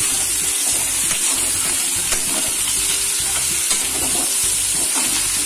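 Cubed potato, pumpkin, brinjal and drumstick frying in mustard oil in a kadai, with a steady sizzle and a few light scrapes and knocks of a metal spatula stirring them.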